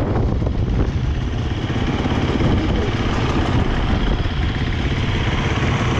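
Enduro dirt bike engines idling steadily, with no revving.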